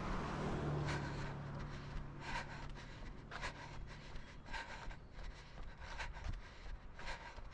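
A runner's footfalls on a concrete sidewalk, with breathing, picked up by a head-mounted camera: short soft impacts about once a second. A low steady hum sits under them for the first few seconds.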